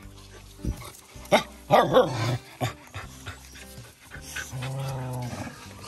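Dog barking and yelping in a short cluster of sharp, loud cries about a second and a half in, over background music.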